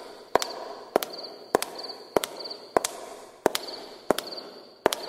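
Regular sharp double clicks, about one pair every 0.6 seconds, over a steady hiss and a faint high steady tone.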